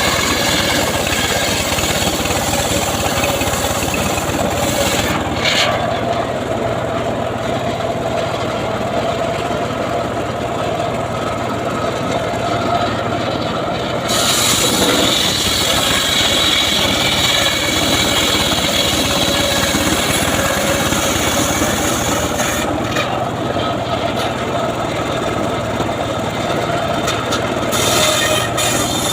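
Homemade band sawmill running and sawing a sengon log: a steady mechanical whine over a constant hum. The higher hiss of the cut falls away for two stretches, about a fifth of the way in and again past three quarters, then returns.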